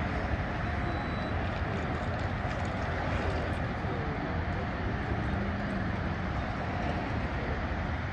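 Steady low vehicle rumble with faint voices in the background.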